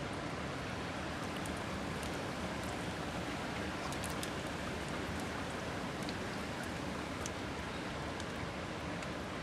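Steady hiss of water, with a few faint high ticks scattered through it.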